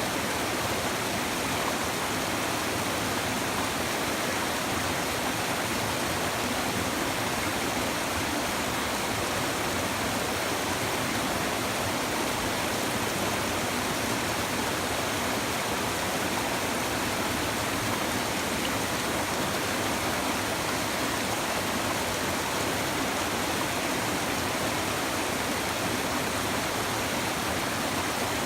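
A shallow river babbling over stones: steady, unbroken rushing and trickling of flowing water.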